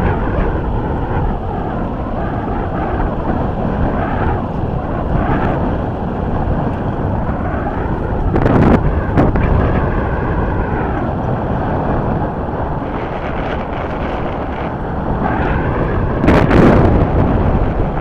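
Boat engine running steadily under way, with wind buffeting the microphone; two stronger gusts come about a third of the way in and again near the end.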